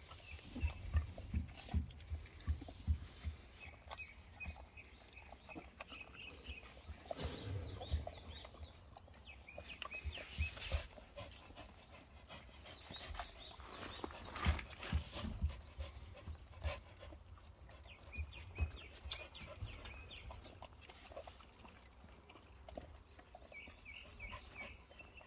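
Jindo puppies playing and mouthing, giving short high-pitched squeaks and whines in several little runs, with soft thumps and scuffles close to the microphone.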